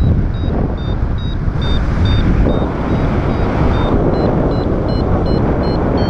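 Strong wind buffeting the microphone, with a paragliding variometer beeping in short, evenly spaced beeps. About four seconds in, the beeps rise in pitch and quicken, the vario's signal of climbing in lift.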